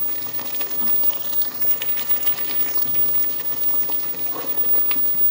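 Thick haleem (lentil and meat porridge) bubbling in an aluminium pot while a wooden ghotna churns and mashes it: a steady wet bubbling and slopping with many small pops and ticks.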